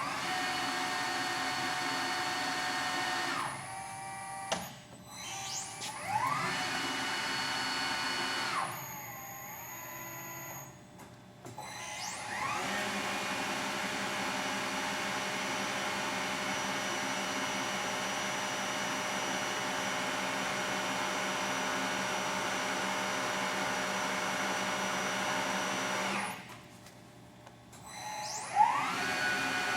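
Shepherd UH 1250A bed mill's motors running: a steady multi-tone machine whine that cuts off and restarts several times, rising in pitch as it comes up to speed after each start.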